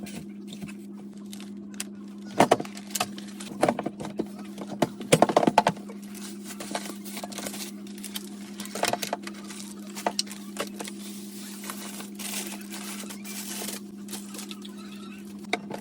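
Vegetables and plastic-wrapped produce being handled and packed into a refrigerator's vegetable drawer: scattered knocks, clicks and rustles, clustered in several short bouts, over a steady hum.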